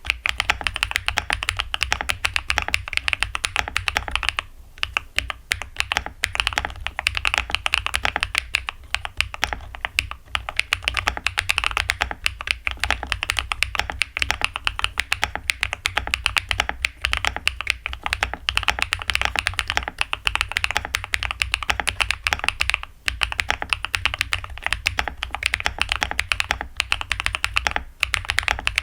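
Fast, continuous typing on a Kiiboom Breeze 75 mechanical keyboard with linear switches: a steady clatter of keystrokes, broken by short pauses about four and a half seconds in and twice near the end.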